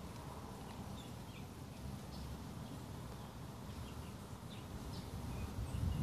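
Birds chirping faintly in short, scattered calls over a steady low background rumble.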